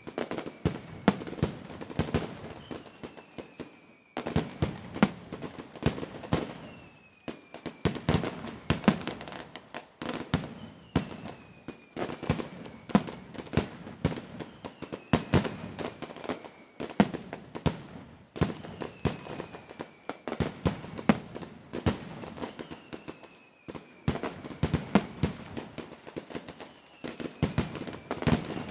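Fireworks display going off: a dense run of sharp bangs and crackling reports, coming in clusters with brief lulls between them. A faint falling whistle recurs about every two seconds.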